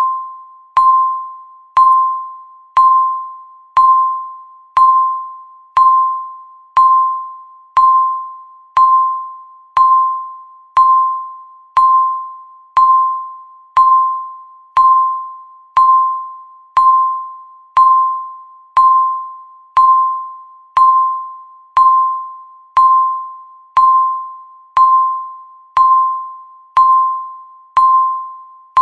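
Countdown timer's tick sound, one tick every second. Each tick is a sharp click with a short ringing tone that fades before the next.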